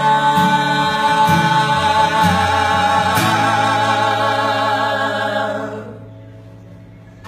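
Gospel singers hold the last note of the chorus in two-part harmony over acoustic guitar. The held note dies away about six seconds in, leaving only soft guitar.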